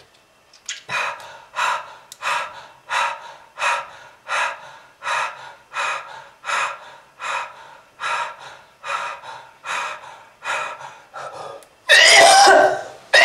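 A person taking quick, gasping breaths in a steady rhythm, about one and a half a second, then breaking into a loud cough near the end.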